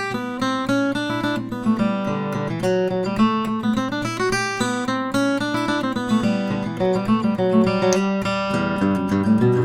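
An all-mahogany Gibson LG-2 Banner Reissue acoustic guitar being played: a continuous run of picked notes and chords.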